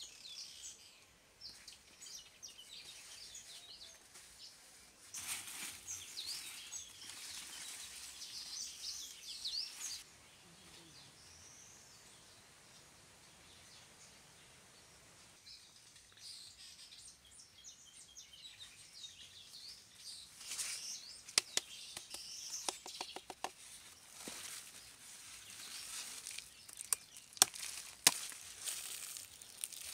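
Birds chirping in many short, high calls that come and go. Near the end there are a few sharp clicks and a quick run of ticks.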